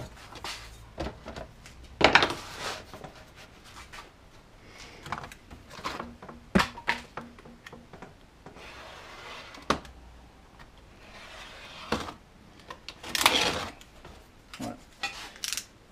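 A knife blade drawn in a few scraping passes along a steel ruler, cutting PVC foam board. Between the passes the ruler and tools knock and clatter on the workbench.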